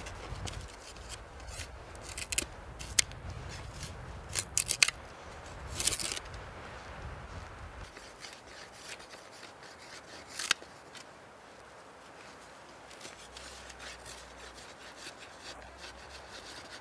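Sharp clicks and scraping of a knife working a thin wooden board, loudest in the first half, then quieter with a few scattered clicks.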